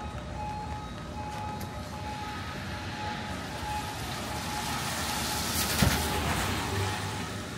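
Street traffic: a vehicle passes close by, swelling to its loudest about six seconds in and then fading, over faint music made of short repeating notes.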